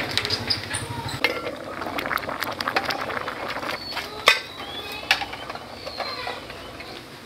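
Scattered light clinks and knocks of small hard objects being handled, with a sharper knock about four seconds in.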